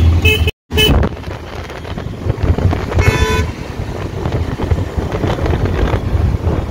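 Vehicle horns honking in city traffic over wind buffeting the microphone and road rumble: a short toot at the start and a louder horn blast of about half a second some three seconds in. The sound cuts out completely for a moment about half a second in.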